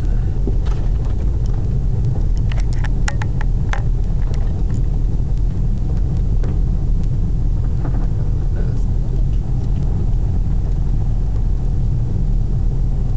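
Car moving slowly, its engine and tyre noise a steady low rumble heard inside the cabin, with a quick run of sharp cracks or clicks about three seconds in.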